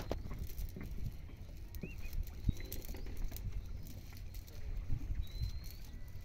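A cast net being gathered and arranged by hand on a wooden boat: scattered soft clicks, knocks and rustles over a low steady rumble. A few short high chirps come through, one about two seconds in and two more later.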